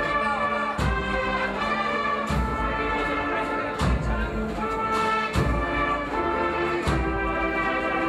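Brass band playing a slow Holy Week processional march: held brass chords over a bass drum stroke about every second and a half.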